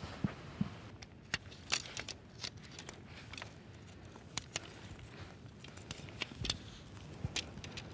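Sections of a shock-corded tent pole being fitted together: a string of irregular sharp clicks and taps. A couple of low thumps come near the start.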